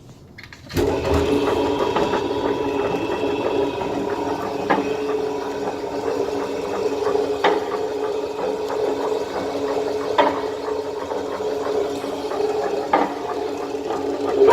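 A Kramer + Grebe AW114 industrial meat grinder (mincer, 114 mm plate) is switched on about a second in and runs steadily with a mechanical hum, a light click recurring about every three seconds.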